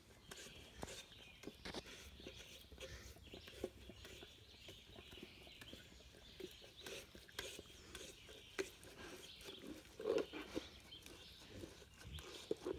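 Golden retriever licking peanut butter out of a plastic jar: faint, irregular wet licks and tongue smacks inside the jar, with a louder flurry about ten seconds in and again near the end.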